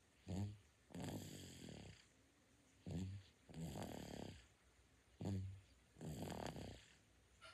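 Nine-month-old baby snoring in sleep: three breath cycles, each a brief snore followed by a longer one about a second long, repeating every two and a half seconds or so.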